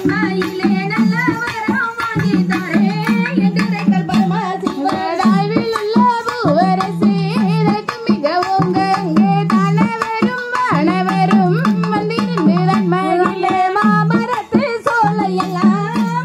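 Tamil valli kummi folk song: singing voices with gliding, ornamented melody over a steady low drone and continuous hand-drum beats.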